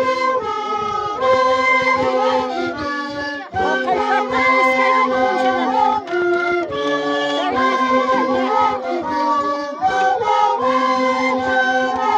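Live Andean carnival music from a group of players: long cane flutes holding sustained notes in unison, over small strummed charangos and voices, in a loud, continuous tune that moves from note to note every second or so.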